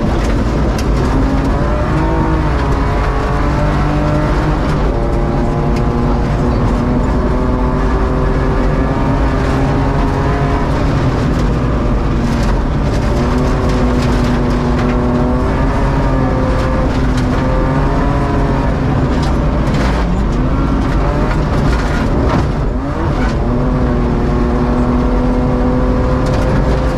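BMW E36 rally car's engine flat out on a gravel stage, heard from inside the car: the revs climb and fall back again and again through gear changes and lifts. Under it runs a constant rush of gravel, with stones ticking against the car.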